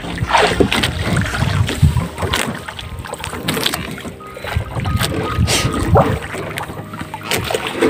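Sea water slapping and splashing against the hull of a small wooden outrigger fishing boat in irregular bursts.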